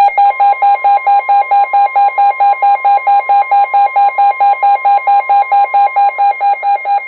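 Weather alert radio's alarm beeping rapidly, about four to five beeps a second, over the steady long warning-alarm tone of NOAA Weather Radio. It signals an incoming warning broadcast, here a flash flood warning.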